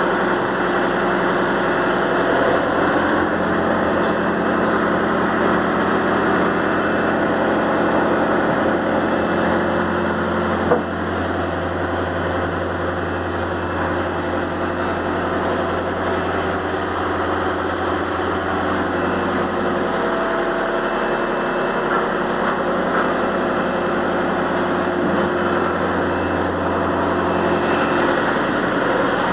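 A machine running steadily with a continuous hum, and one sharp knock about ten seconds in.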